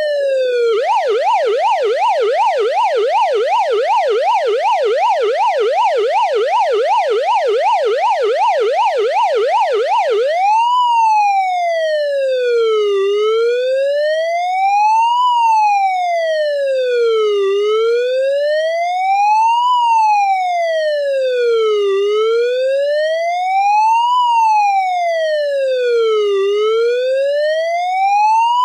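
Police car siren: a rapid yelp sweeping up and down for about ten seconds, then switching to a slow wail that rises and falls every four to five seconds.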